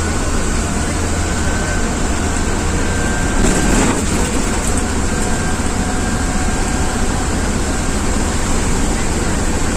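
Ashok Leyland Viking bus's diesel engine running steadily as the bus drives, under a constant hiss of heavy rain and wet road. A brief louder rush comes about three and a half seconds in.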